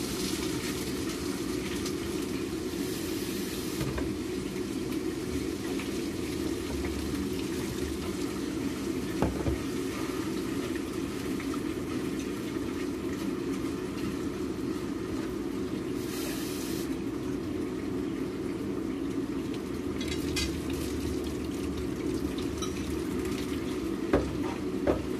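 Steady kitchen hum, with a few short clinks of stainless-steel pots and utensils, one about nine seconds in and two near the end.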